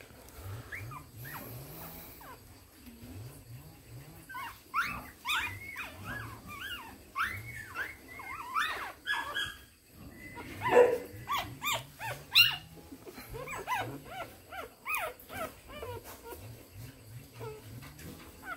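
Very young puppies whining in many short, high-pitched cries, a few at first and then in quick succession from about four seconds in. The loudest cries come a little past the middle.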